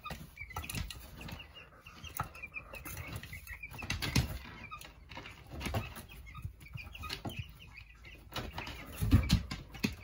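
Meat-bird chicks peeping, many short high chirps, over rustling in wood shavings and scattered knocks, the loudest about four seconds in and near the end.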